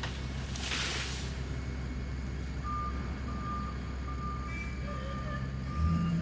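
Heavy truck's diesel engine running, with a short hiss about a second in, then its reversing beeper starting up and beeping steadily. The engine revs up near the end as the truck backs.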